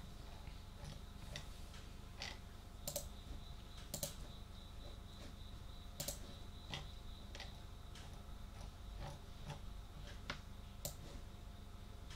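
Faint, slow computer clicks: single key or button presses, irregular, about one or two a second.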